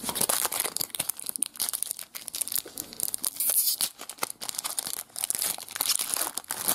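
Foil wrapper of a trading card pack being torn open and crinkled by hand: a run of sharp, crackly rustling with a short break about halfway.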